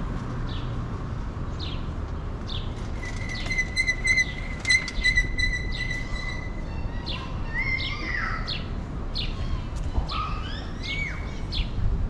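Small songbirds chirping and singing in the street trees, with one steady high note held for a few seconds midway, over a low rumble of city background noise.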